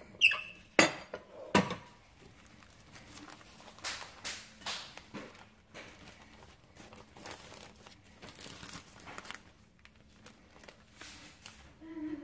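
Metal tortilla press clacking as its handle and lid are worked, with a few sharp knocks in the first two seconds. Then a plastic bag liner crinkling as a freshly pressed corn tortilla is peeled off it.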